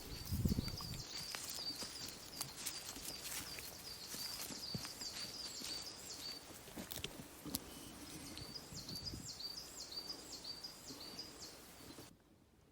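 A small songbird singing long, fast runs of repeated high notes, each with a quick upward flick, twice. Scattered light clicks and scuffs sound underneath.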